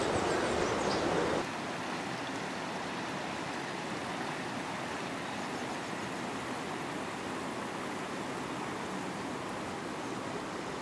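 Fast mountain river rushing over rocks, a steady sound of running water that is a little louder for about the first second and a half.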